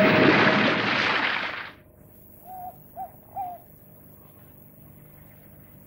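A loud whooshing noise fades out within the first two seconds. An owl then hoots three times in quick succession, short hoots about half a second apart.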